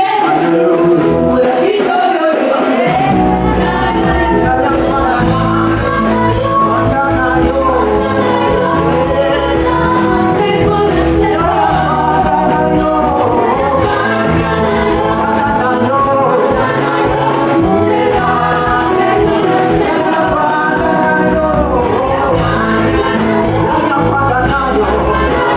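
Gospel worship song: a choir and singers over a live band, with bass and drums coming in about three seconds in.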